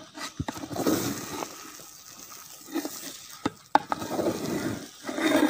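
Large ladle stirring and scraping through cooked biryani rice in a big metal pot, with a few sharp knocks of the ladle against the pot, the loudest nearly four seconds in.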